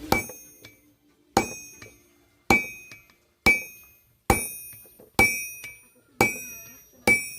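Blacksmith's hammer striking metal on an anvil, eight blows about a second apart, each with a bright metallic ring that dies away before the next.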